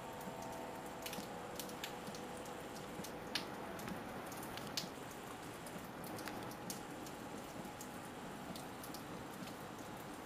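Steady rain falling, with scattered drops ticking sharply on a nearby surface.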